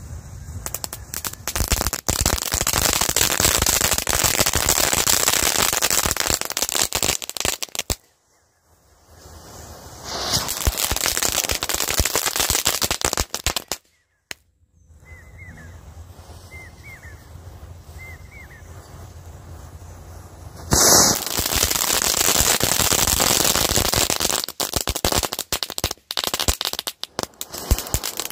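Diwali firecrackers and spark fountains set off by a burning matchstick chain: dense rapid crackling and popping alternating with spells of rushing hiss from the fountains spraying sparks. A sudden loud burst comes about three-quarters through, followed by scattered sharp pops.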